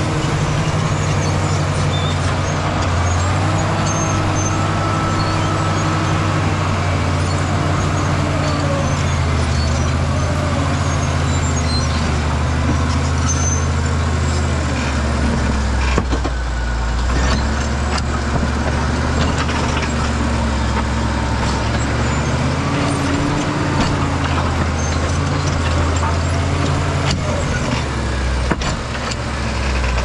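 Caterpillar D7G crawler dozer's six-cylinder diesel engine running hard under load as the blade pushes rock and dirt. The engine note sags and recovers several times, with scattered clatter of rock and steel tracks.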